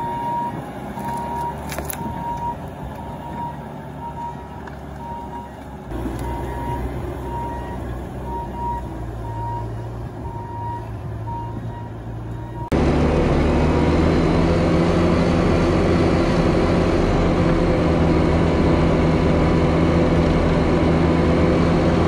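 Bobcat T650 compact track loader's diesel engine running, with its backup alarm beeping steadily at a regular pace. About thirteen seconds in, the engine sound jumps suddenly to much louder and steadier, with no more beeping.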